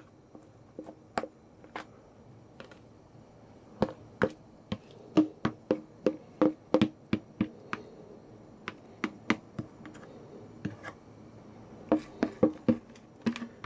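A spoon knocking and scraping against a plastic mixing bowl as thick beer bread dough is worked out of it into a stainless steel baking pan: a run of irregular sharp clicks and taps, busiest in the middle.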